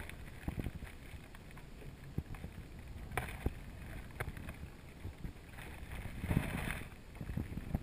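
Wind buffeting the microphone over a low rumble from a small fishing boat on the water, with scattered light clicks and knocks. A louder rush of wind noise comes about six seconds in.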